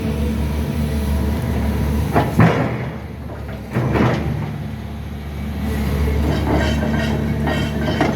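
Caterpillar 336 hydraulic excavator's diesel engine running steadily, with two sharp knocks about two and four seconds in, and the engine sound dipping briefly between them.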